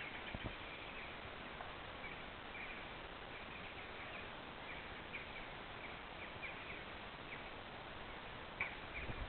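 Steady outdoor background noise with faint, short, high chirps or clicks scattered throughout, and a few sharper knocks near the end.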